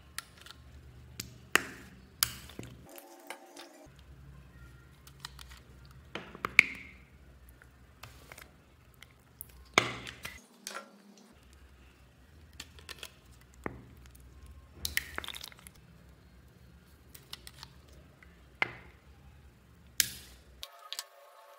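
Scattered sharp clicks and crackles of small plastic slime bottles being handled and squeezed out onto a tray of slime, in irregular bursts. The sound drops out briefly three times.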